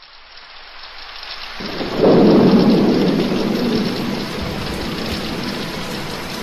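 Steady rain hissing as it fades in, with a roll of thunder that swells about two seconds in and slowly dies away under the rain.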